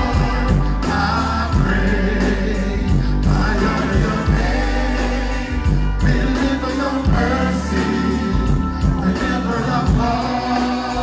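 Live dancehall music played loud over a concert sound system, with a heavy bass line, a steady beat and singing.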